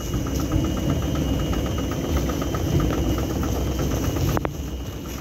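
Heavy machinery running in a depackaging plant: a steady low rumble with a regular ticking about six times a second and a faint steady high whine. A single sharp click comes about four seconds in.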